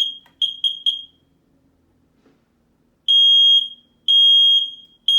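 A brand-new smoke detector sounding its alarm on the test button: four quick high-pitched beeps, then after a short pause three loud half-second beeps a second apart. The alarm is working.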